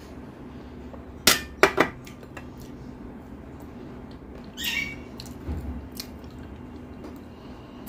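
Stainless steel dishes clinking: a bowl and spoon knocked against a steel plate, three sharp clinks about a second and a half in, and another clatter a little before the five-second mark.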